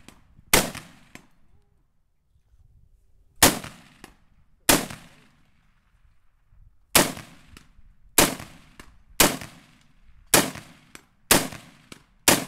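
Semi-automatic AR-style scoped rifle firing nine single shots, mostly about a second apart, with a pause of a couple of seconds after the first. A fainter sharp sound follows a few of the shots shortly after.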